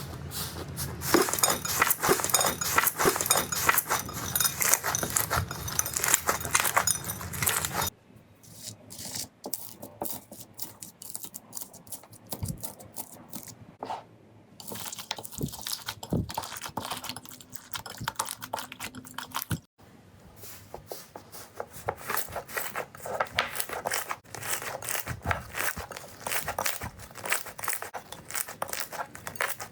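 Slime being squeezed, stretched and poked by hand: dense crackling and clicking, loudest for about the first eight seconds, then quieter stretches of scattered clicks and pops.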